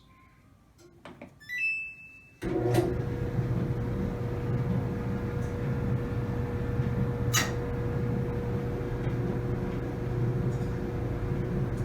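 Samsung DV45H7000GW clothes dryer being started: a few button clicks and a short beep from the control panel, then about two and a half seconds in the drum starts and runs with a steady hum and tumble. It turns with no squeal, on new drum rollers, belt and tensioner pulley.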